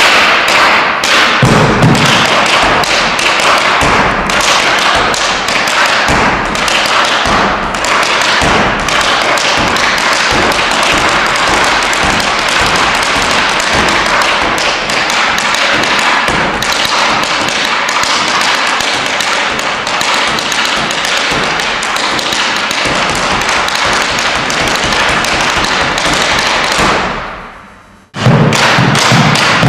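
Boleadoras swinging and tapping against the wooden stage floor, with a bombo legüero drum, in a fast, dense percussive rhythm. Near the end the sound fades out over about a second and then cuts back in abruptly.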